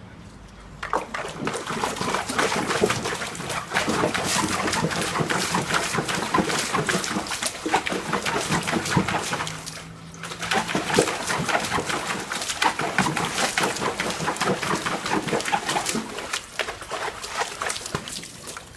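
A dog splashing about in a bucket of water, with rapid, continuous sloshing and splashing. There are two long spells of it, with a short pause about ten seconds in.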